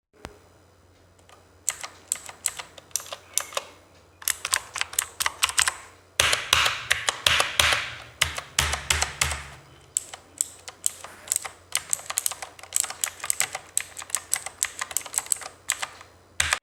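Typing on a Redgear Chameleon mechanical keyboard: a stream of sharp key clicks, with a short lull about four seconds in and a faster, denser run of keystrokes from about six to nine seconds.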